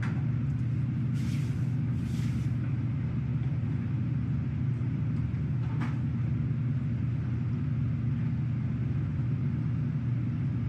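Steady low hum of the support ship's machinery, heard inside the vessel. Two short hisses come about one and two seconds in, and a brief click near six seconds.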